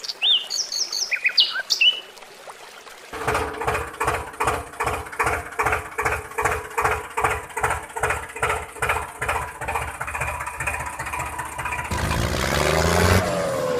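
Birds chirping briefly, then a tractor engine chugging at a steady beat of about three pulses a second. Near the end it gives way to a revving sound that rises and falls in pitch.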